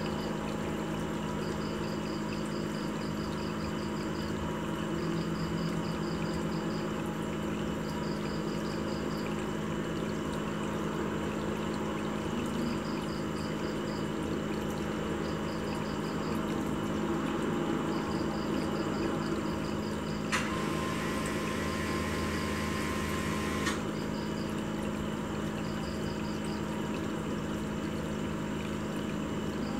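Aquarium water pump running steadily with a low hum and trickling, splashing water. Faint, high, rapid chirps come in short runs every couple of seconds, and a little past the middle a steady tone sounds for about three seconds, starting and stopping abruptly.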